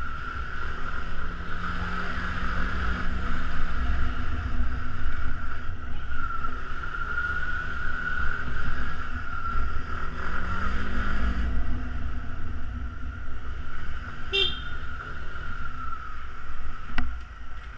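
Yamaha Xenter 150cc scooter's single-cylinder engine running through narrow lanes, its revs rising and falling twice, with wind rumble on the helmet-mounted microphone. A short high beep about fourteen seconds in.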